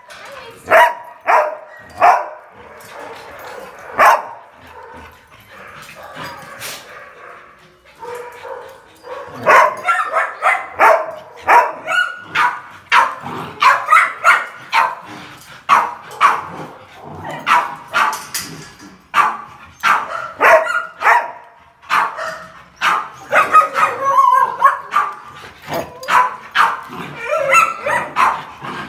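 Puppies barking and yipping while they play-fight. There are a few spaced barks at first, then a quieter stretch, then rapid, near-continuous barking from about a third of the way in.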